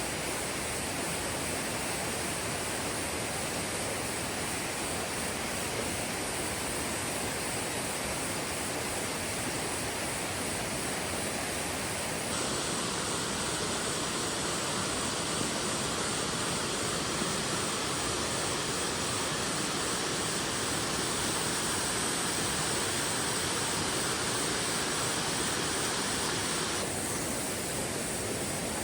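Mountain valley stream water rushing steadily, with a high, steady trill of grass insects above it. The balance of the sound shifts abruptly twice, about twelve seconds in and again near the end.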